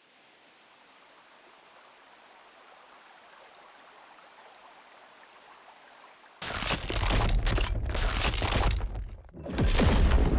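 Anime fight sound effects: a faint hiss swells slowly, then about two-thirds of the way in a sudden loud noisy burst with a deep rumble breaks out, dips briefly and comes back.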